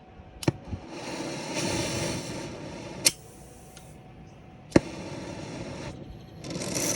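Brazing torch hissing as it heats the larger copper line on a compressor. The hiss comes and goes, three sharp clicks cut through it, and near the end it swells into a louder, steady rush.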